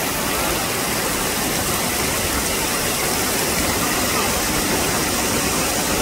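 Waterfall pouring down a rock face: a steady, even rushing of falling water.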